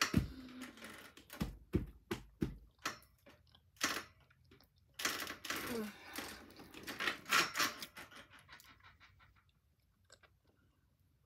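A child chewing a dry, crunchy MrBeast cookie: a run of short crunching clicks, then two breathy, noisy stretches of chewing before it dies away about three seconds before the end.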